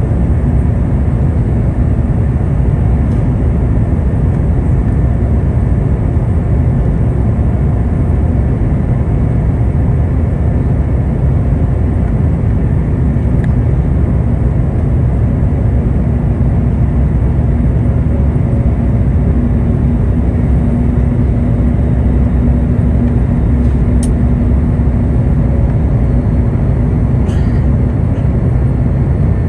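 Steady, loud cabin noise of an Airbus A350 on approach: the rumble of airflow and the Rolls-Royce Trent XWB engines heard from a seat by the wing. A low hum comes up for a few seconds past the middle, and a few faint clicks sound near the end.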